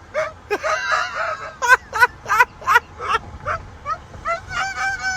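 An animal calling repeatedly: a quick run of short, sharp pitched cries about two seconds in, then a longer wavering call near the end.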